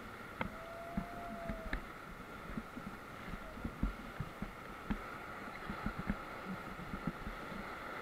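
Whitewater rapids rushing around an inflatable raft, with water splashing over the boat and irregular dull thumps.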